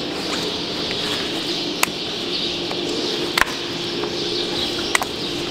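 Hoof knife working in the sole of a cow's claw, with a few sharp clicks as the blade catches the horn, over a steady hum and birds chirping in the background.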